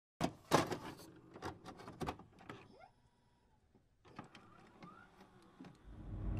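Electronic glitch sound effects for a title animation: scattered sharp clicks and crackles with short whirring chirps, a brief pause about three seconds in, then a low rumble swelling near the end.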